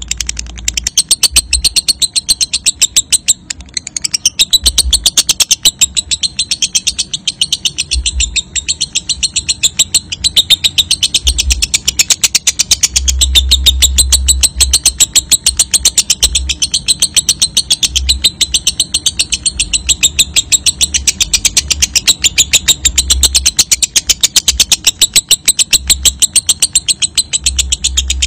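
Lovebird singing a long ngekek: a continuous, rapid, high-pitched chattering trill of many notes a second, barely pausing, with a short break about three and a half seconds in.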